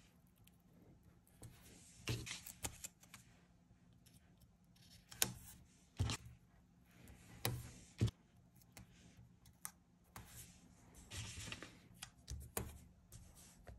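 Paper stickers being peeled and pressed onto a paper sheet by hand: crinkly rustles of sticker paper and backing, with a handful of sharp taps and clicks of fingertips and nails on the paper.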